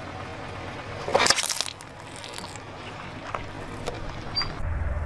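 Car tyre rolling over and crushing a foil-lidded plastic cup of cream and a bar of soap: a sharp crunch about a second in as the cup bursts, then a few faint crackles. A low rumble starts near the end.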